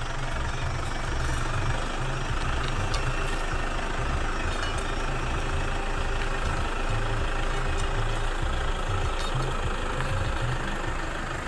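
Truck engine running steadily with a low, uneven rumble.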